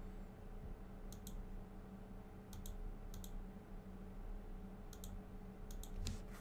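Computer mouse clicking: about six quick pairs of sharp clicks spread across a few seconds, over a low steady hum.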